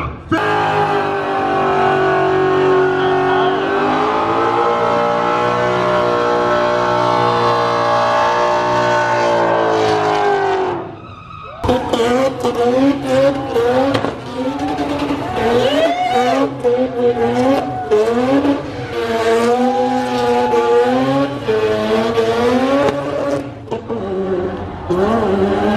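Car engine running at high, nearly steady revs for about ten seconds while the rear tyres spin in a smoking burnout. It then cuts back for a moment and returns with revs rising and falling repeatedly as the car slides around.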